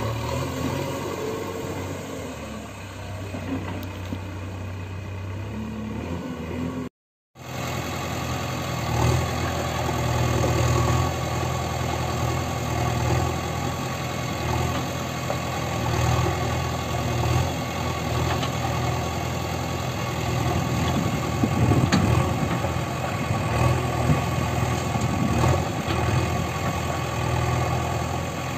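Diesel engine of a JCB 3DX backhoe loader running under load while it loads soil into a tipper truck. The engine note swells up and down. There is a short complete break about seven seconds in.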